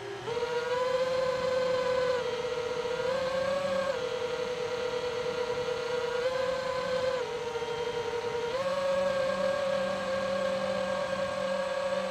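Electric motor and propeller of a radio-controlled FPV aircraft whining steadily in flight. The pitch steps up and down several times as the throttle changes.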